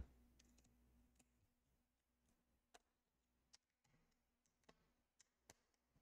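Near silence, with a few faint, scattered clicks.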